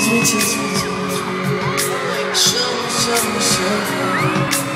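Live pop music over an arena's sound system: held chords with singing and a beat, and high screams from fans gliding over it.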